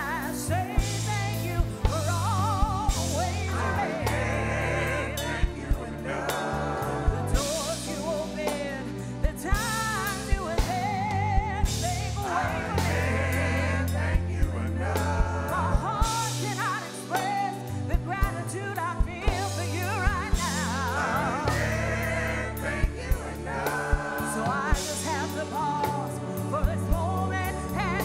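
Live gospel worship song: a woman leads into a microphone with backing singers joining, over bass and a steady drum beat.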